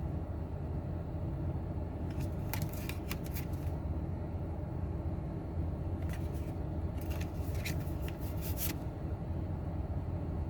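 Magic: The Gathering cards being flicked and slid past one another in two short spells of crisp snapping and rustling, over a steady low background rumble.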